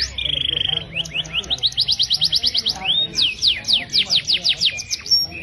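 Male cage bird singing fast trills. A short even trill comes about half a second in, then runs of quick notes sweeping down in pitch, several a second.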